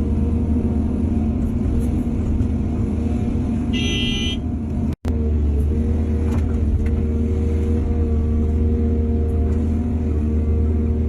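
Heavy diesel earth-moving machinery running steadily with a low drone. A brief high-pitched squeal comes about four seconds in, and the sound drops out for an instant at about five seconds.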